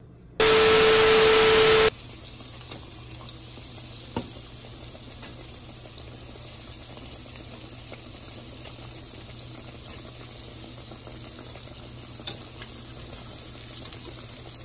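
Seasoned crab meat deep-frying in hot oil: a steady sizzle, with a couple of light clicks along the way. It opens with a loud hiss over a steady hum that cuts off after about a second and a half.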